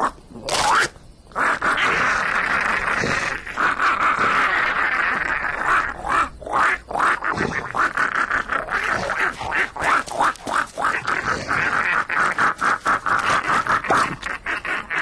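Cartoon toads croaking: a continuous run of calls that breaks into a fast stutter of short croaks in the second half.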